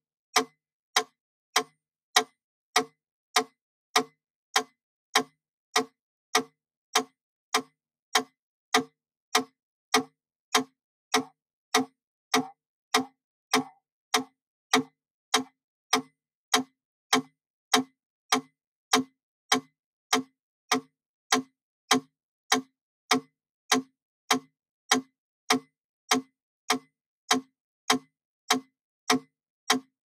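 Wooden mechanical pendulum metronome ticking steadily at 100 beats per minute: one sharp click on each swing, about five clicks every three seconds.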